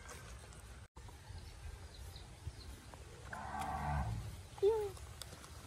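An animal's drawn-out call lasting about a second, followed soon after by a short, louder rising-and-falling squeak.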